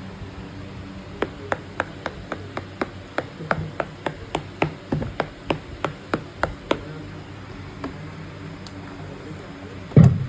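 Pads of a Roland SPD-20 Pro percussion pad being tapped: a run of about twenty sharp taps, three to four a second, then a single louder thump near the end.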